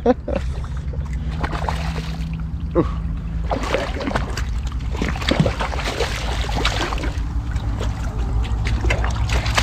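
Water splashing and sloshing in irregular bursts over a steady low hum.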